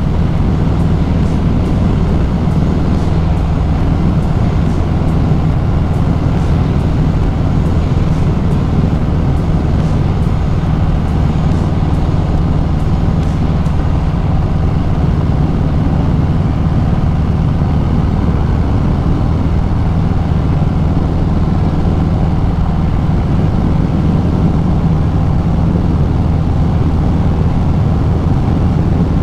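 Harley-Davidson Sport Glide's V-twin engine running steadily at cruising speed, heard from on the moving bike.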